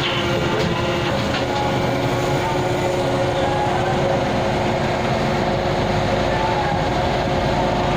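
Heavy machinery running steadily, a continuous mechanical hum and rumble, with a few faint clicks in the first second and a half.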